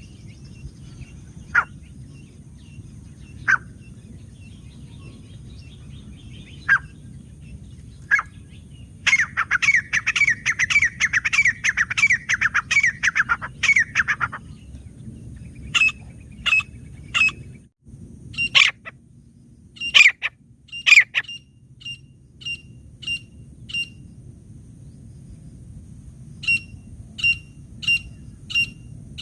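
Grey francolin calling: scattered sharp single calls, a rapid run of repeated calls lasting about five seconds in the middle, then a string of short high notes, at times about two a second.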